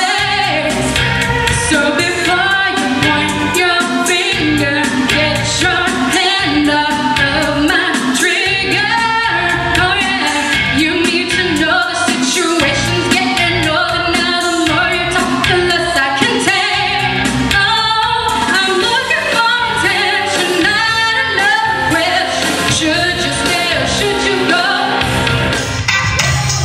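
A woman singing a pop song into a handheld microphone over a recorded backing track. Near the end the music cuts to a different track.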